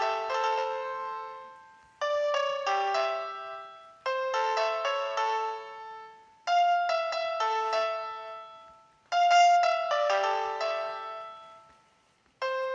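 Background music: a slow piano melody in short phrases. Each phrase opens with a quick cluster of notes that rings and fades out, with a new phrase about every two to three seconds.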